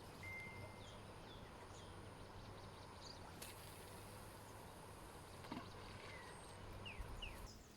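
Faint open-air ambience with a few short, scattered bird chirps.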